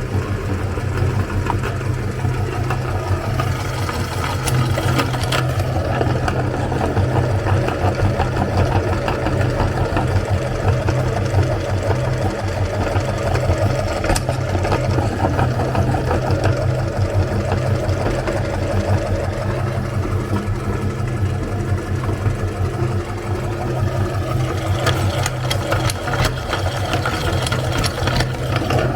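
Electric meat grinder running steadily while it grinds bars of coloured soap, a constant motor hum with scattered faint clicks from the soap being crushed.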